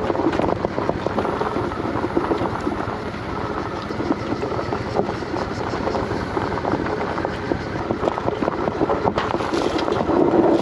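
Honda Shadow ACE 750 cruiser's V-twin engine running as the tyres crunch and crackle over loose, rough gravel.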